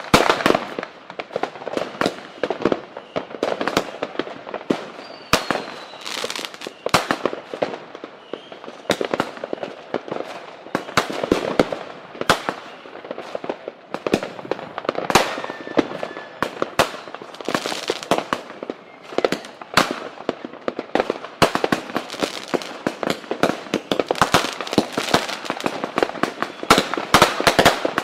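Fireworks and firecrackers going off: many sharp bangs and crackles in quick, irregular succession, without a pause.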